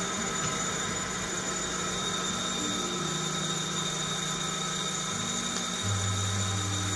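STK sample roaster running with a steady mechanical hum at the end of a roast, just past first crack. About six seconds in, a deeper hum joins in as the roast is ended and the automatic bean cooling starts.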